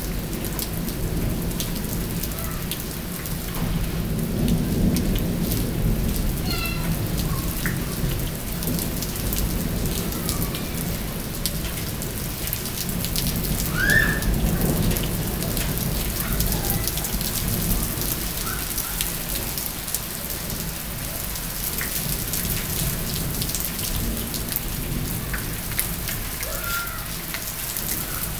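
Steady heavy rain falling and spattering on hard surfaces, under a continuous low rumble of thunder. A few short high chirps cut through, the clearest about halfway through.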